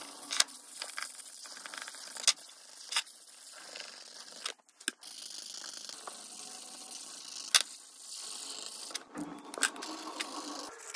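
Felt-tip marker scratching across paper in repeated colouring strokes, with several sharp clicks scattered through and a brief break about halfway.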